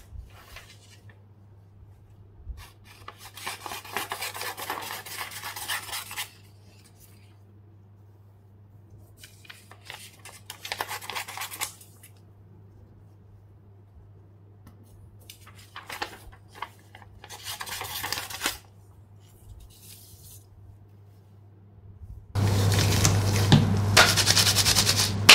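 Sheets of paper being handled and cut with scissors, in several short spells of rustling and snipping with quiet between. Near the end, gloved hands rub together, much louder than the paper.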